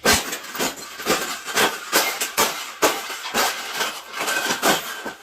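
Repeated irregular clattering and knocking, several sharp knocks a second over a continuous rattle, as of a cage being shaken and struck.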